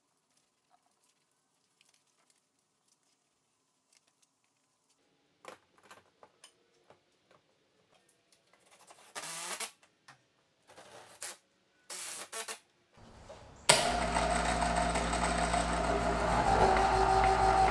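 Harbor Freight electric cable hoist starting abruptly about three-quarters of the way in and running steadily with a constant motor hum, winching the wooden loft staircase up. A few short bursts of noise come before it.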